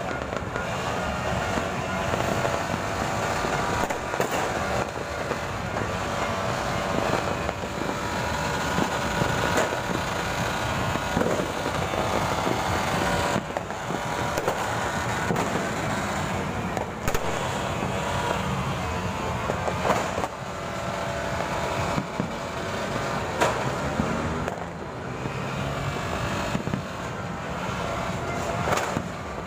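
Fireworks and firecrackers going off: scattered bangs and pops at irregular intervals over a steady din.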